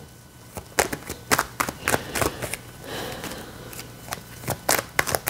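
A tarot deck being shuffled by hand: a run of irregular, crisp card flicks and taps, starting about a second in.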